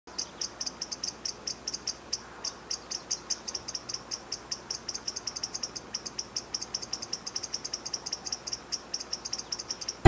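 Least chipmunk calling: a rapid, even series of short, high chips, about six a second, with a brief pause about two seconds in.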